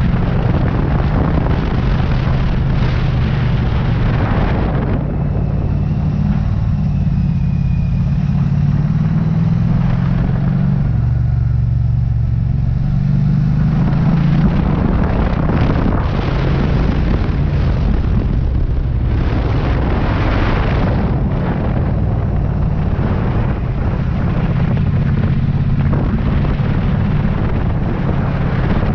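Triumph Street Cup's 900 cc parallel-twin engine running steadily on the move, heard from the bike with wind rushing over the microphone. The wind noise eases off for several seconds in the first half, while the engine's low drone comes through more clearly, then picks up again.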